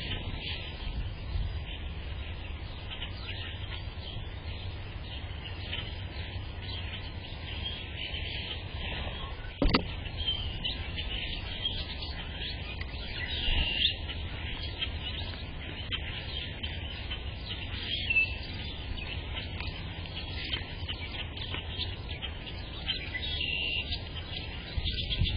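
Small birds chirping at intervals over a steady low rumble, with one sharp knock about ten seconds in.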